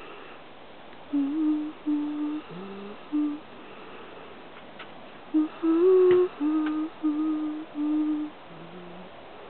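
A person humming a slow tune in short held notes, in two phrases with a pause of about two seconds between them.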